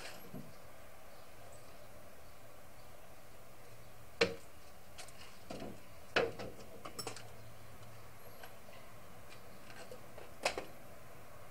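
A few separate sharp knocks over a faint steady background: the loudest about four seconds in and about six seconds in, a small cluster just after seven seconds, and another near the end.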